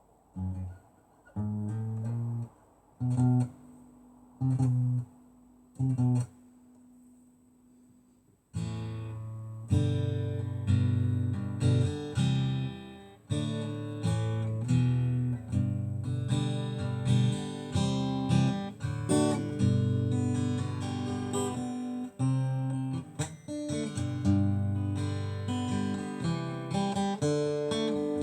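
Acoustic guitar: a few single strummed chords with short gaps between them, then from about eight seconds in, continuous strumming and picking.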